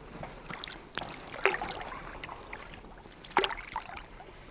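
Lake water lapping and dripping against a canoe, with a few small splashes and a light knock about a second in.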